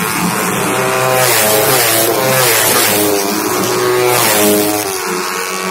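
Several small racing underbone motorcycles passing close by, their engines revving, with the engine notes overlapping and rising and falling in pitch again and again as the riders work the throttle.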